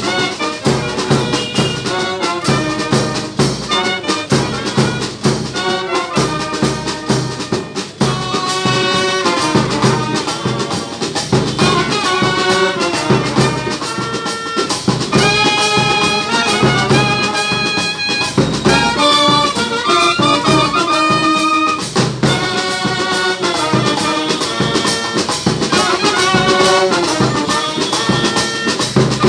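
Military brass band playing a tune: trumpets and other brass carry the melody over a steady beat from bass drum and snare drum.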